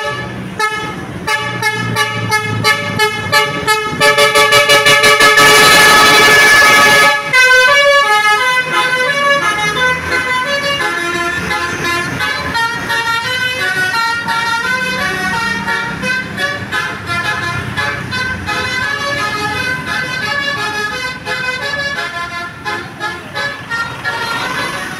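Basuri telolet bus horn, a multi-trumpet musical horn, sounding loudly. Quick repeated toots speed up over the first few seconds into a long blast, which is followed by a run of changing notes playing a tune.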